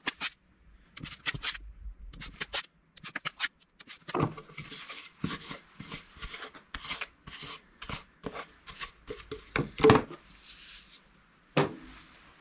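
Wide masking tape being pulled off its roll, torn and smoothed down by hand onto a birch-ply board: a string of short rips, taps and rubbing, with longer hissing peels a few seconds in and again near the end.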